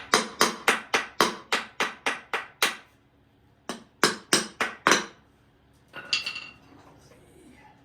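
Hammer tapping on a Chevy 305 small-block to break a part loose: a quick run of sharp metal strikes about three a second, a short pause, then five more. About six seconds in, a single metallic clink with a brief ring.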